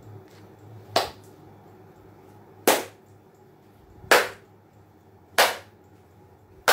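Slow, single hand claps, five sharp claps about a second and a half apart.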